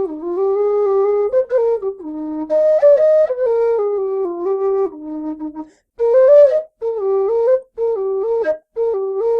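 Setanta low E-flat whistle playing a slow melody in stepwise notes, the lowest near the bottom of its range. Breath hiss shows on the higher notes, and the playing has short breathing gaps between phrases.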